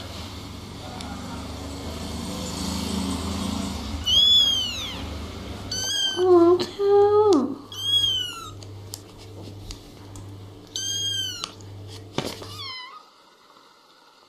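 Kittens mewing: about six short, high-pitched mews, each rising then falling in pitch, with a lower, longer meow about six to seven seconds in.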